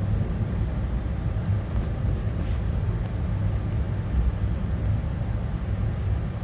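Moscow Central Circle electric train (ES2G Lastochka) running along the track, heard from inside the carriage: a steady low rumble of wheels and traction equipment.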